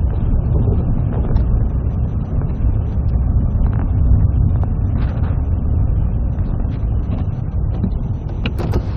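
A car being driven on a snowy road: a low, steady rumble of engine and road noise, with a brighter hiss and a few clicks coming in near the end.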